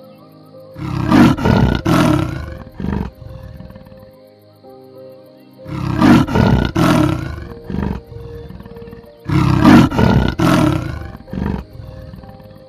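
A large animal roaring in three loud bouts a few seconds apart, each made of two or three long calls and a shorter one after, over soft background music.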